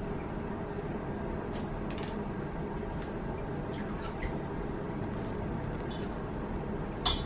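Light, irregular clicks and taps of small plastic bath toys against an acrylic bathtub, about eight in all, with the loudest one near the end, over a steady background hiss.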